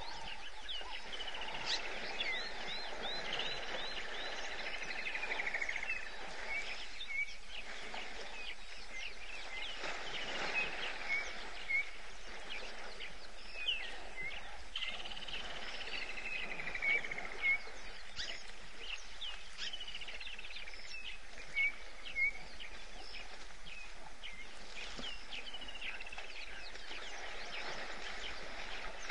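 Wild birds calling and singing over a steady outdoor background hiss: a falling series of whistled notes comes back every several seconds, with short sharp chirps in between.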